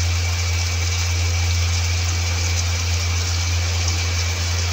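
Onion-tomato masala sizzling steadily in hot oil in a pan, over a constant low hum.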